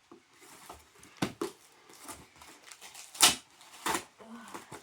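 Cardboard boxes and packaging being handled: scattered rustles and clicks, with a sharp knock a little after three seconds in and another just before four.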